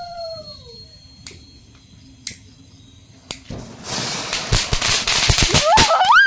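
Fireworks going off: a few single cracks, then a loud hiss with a quick run of sharp bangs, ending in a wavering, rising high tone.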